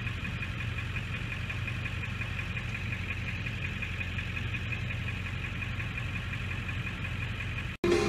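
An idling engine giving a steady low hum, with a faint, steady high whine over it. It cuts off suddenly just before the end.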